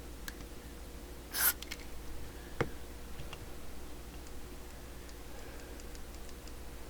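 Small clicks and taps of hands and tools handling the parts of a CB radio, with one brief hiss about a second and a half in and a sharper click a little later.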